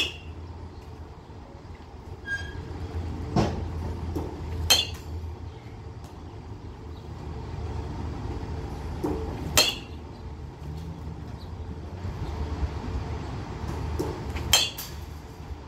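Metal bat hitting pitched balls: four sharp, ringing pings about five seconds apart, with a softer knock shortly before most of them. A steady low hum runs underneath.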